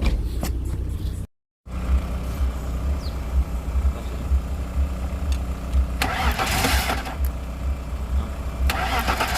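BMW M50 straight-six engine idling steadily during a cylinder-by-cylinder misfire check, with the coils being unplugged one at a time to find the misfiring cylinder. About a second in the sound drops out completely for a moment, and a hissing noise comes in about six seconds in and again near the end.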